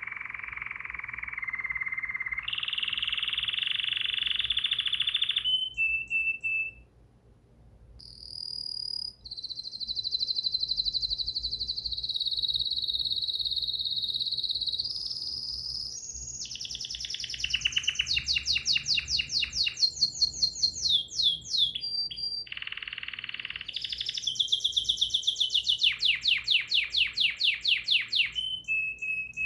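Bulbul singing: long held whistled notes alternating with fast trills of rapidly repeated notes, with a short pause about a quarter of the way through.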